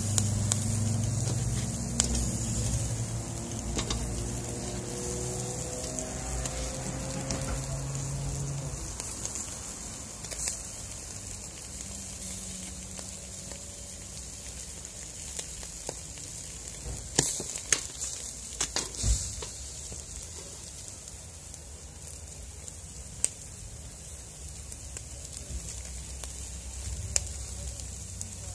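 Fish sizzling over hot charcoal in a wire grill basket: a steady hiss with occasional sharp pops and crackles. A low engine hum is heard at first and fades out about nine seconds in.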